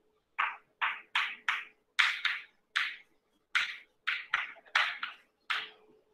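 Chalk being written on a blackboard in capital letters: about a dozen short strokes in quick, uneven succession, one per stroke of each letter. A faint steady hum runs underneath.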